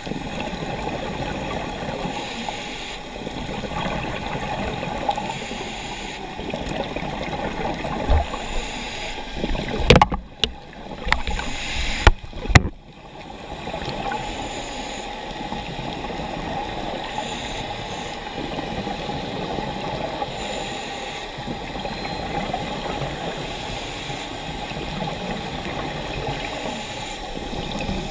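Muffled underwater noise picked up through a camera's waterproof housing, with a scuba diver's regulator breathing, a hiss and bubbles returning every few seconds. A few sharp knocks come close together about ten to twelve seconds in.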